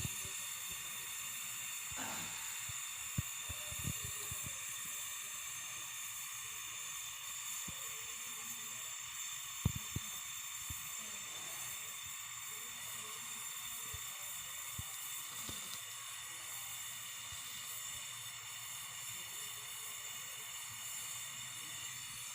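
Gas brazing torch flame hissing steadily during refrigerator pipe welding, with a few light clicks and taps.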